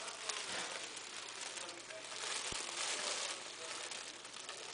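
Thin plastic bag rustling and crinkling as hands grip and turn the bagged security tag, with a sharp click early on and two short low thumps.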